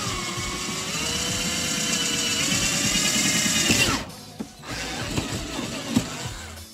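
Power drill boring up through a composite body-kit spat, its motor whine wavering and rising in pitch as the bit cuts. The whine stops abruptly about four seconds in as the bit breaks through, followed by a few light clicks and knocks.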